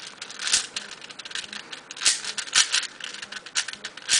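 Plastic layers of a loose, Pi-modded V-Cube 6 (6x6 puzzle cube) clicking and clacking as it is turned fast by hand: an uneven run of sharp clicks, a few of them louder.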